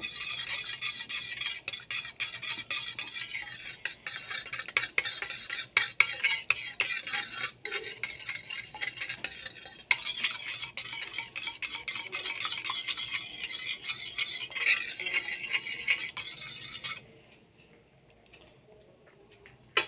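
Two raw eggs being beaten with a metal fork in a plate: a fast, continuous clicking and tapping of the tines against the plate through the liquid egg, stopping a few seconds before the end.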